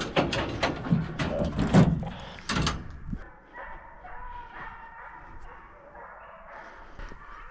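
Hunting hounds barking and baying while running a deer: several loud barks in the first three seconds, then fainter, steadier baying.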